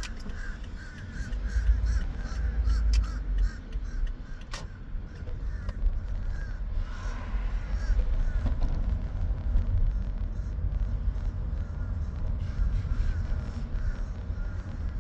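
Gusty wind buffeting the microphone as a low rumble, strongest a couple of seconds in, with birds calling repeatedly in short, wavering calls. A single sharp click about a third of the way through.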